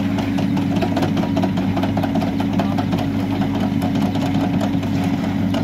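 Hidromek backhoe loader's diesel engine running steadily while the backhoe arm works the bucket in a trench.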